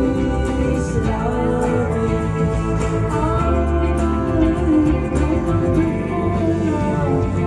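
Live band music with a singer holding long, gliding sung notes over guitar and a steady low accompaniment.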